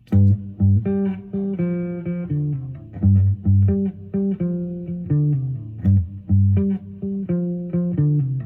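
Epiphone Sheraton semi-hollow electric guitar playing a slow blues in G: a repeating low-note rhythm figure with notes and chords above it.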